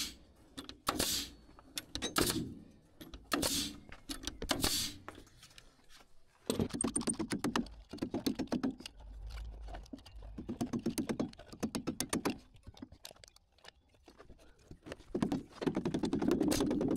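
Pneumatic framing nailer driving nails into wood I-joists: four sharp shots about a second apart. Then a caulking gun clicks in quick runs as construction adhesive is squeezed out.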